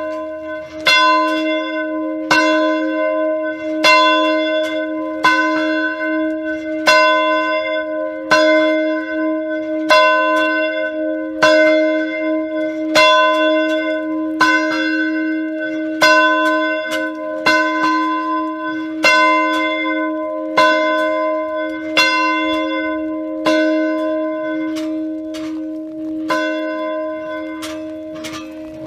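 Church bell ringing steadily, struck about once every second and a half, each stroke ringing on into the next over a constant hum. The bell is rung as a call to prayer.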